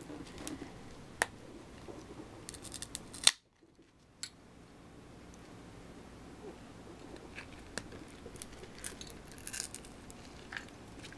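Small clicks and crackles as an iPhone 4's adhesive-backed battery is pried and peeled up out of the phone's case, the glue holding it down. A loud sharp click comes about three seconds in, followed by a brief break in the sound.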